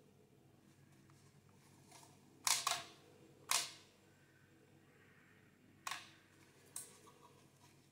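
Shutter of a Kodak No. 2A Beau Brownie box camera being fired, sharp mechanical clicks: a quick double click about two and a half seconds in, a single click a second later, another near six seconds and a fainter one near seven.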